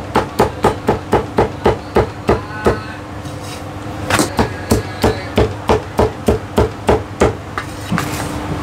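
Heavy Chinese cleaver chopping char siu (barbecued pork) on a thick round wooden chopping block: quick, even chops about four a second, a pause of about a second near the middle, then a second run of chops that stops shortly before the end.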